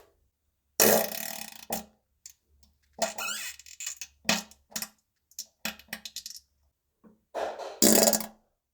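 A string of farts: two long ones, then a quick run of short ones, then a final long one, which is the loudest.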